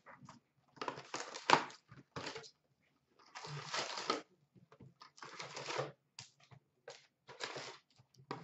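Cardboard hobby box of Upper Deck SP Authentic hockey cards being handled and opened: a run of short scraping, rustling bursts of cardboard and packs, with one sharp knock about one and a half seconds in.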